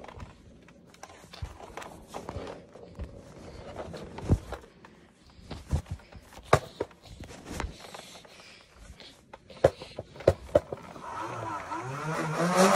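Scattered clicks and knocks of handling. About eleven seconds in, a motor whine starts and rises in pitch as it grows louder: the flywheels of a motorized toy foam-dart blaster spinning up.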